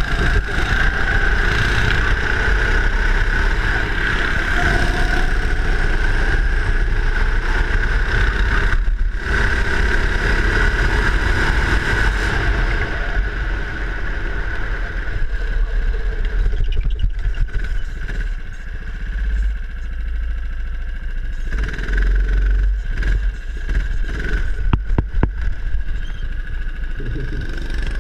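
Go-kart engine running hard under way, heard from on board the kart. Its sound drops off briefly a few times, around a third of the way in and again through the second half, then picks back up.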